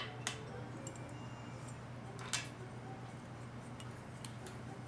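A few light clicks, one at the very start, another just after, and one a little past two seconds in, over a steady low hum.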